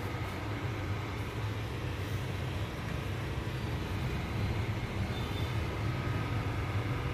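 Steady whir and low hum of a desktop PC running with its case open: the CPU cooler fan and power-supply fan spinning just after power-on.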